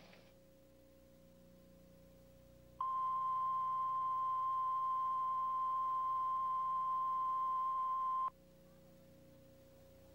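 Television colour-bars reference tone: one steady pitch that starts about three seconds in and cuts off sharply about five and a half seconds later, over a faint steady hum.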